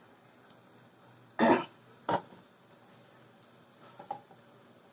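A single short cough about a second and a half in, followed by a light knock a moment later, with little else but faint room sound.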